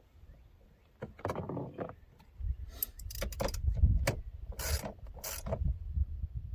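A fastener on a truck's interior door panel being tightened by hand. After a quiet start there is one click about a second in, then irregular clicks and scraping of the tool against the plastic trim over a low handling rumble.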